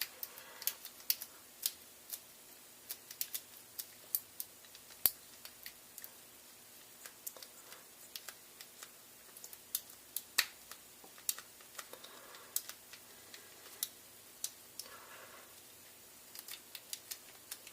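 Light, irregular metallic clicks and ticks of a lock pick and tension wrench being worked into the small keyway of a cable lock, a few of them sharper than the rest.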